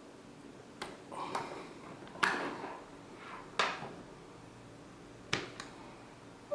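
Handling clicks and knocks from the split keyboard and its gimbal mount as it is taken apart for disassembly: about six separate sharp clicks, the loudest a little over two seconds in and again about three and a half seconds in.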